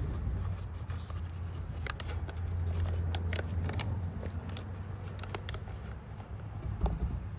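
Scattered light clicks and taps of a wrench and metal parts as a tight engine oil drain plug is worked loose, over a steady low rumble.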